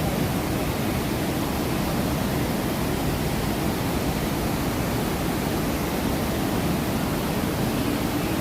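Steady, even rush of water pouring over the artificial waterfalls and rapids of a theme-park river rafting ride.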